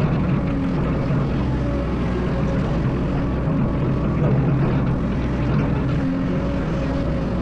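Excavator's diesel engine running steadily with a low drone, its pitch shifting slightly a couple of times.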